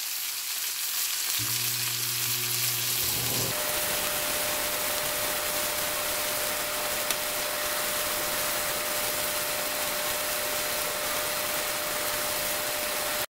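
Thick chuck roast steak sizzling steadily in hot fat in a frying pan, an even, unbroken hiss. A faint steady tone runs underneath from a few seconds in, and the sound stops abruptly at the end.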